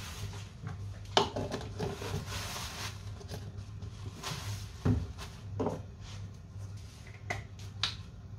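Lab bench handling sounds: paper towel rustling, then several sharp clicks and knocks as a jar lid and a plastic centrifuge tube are handled. A steady low hum of lab equipment runs underneath.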